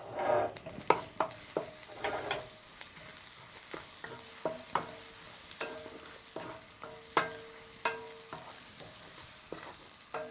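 Ginger and Chinese five-spice frying in roasted sesame oil in a pan, with a faint steady sizzle. A utensil stirring the spices knocks and scrapes against the pan in a dozen or so sharp, irregular clicks.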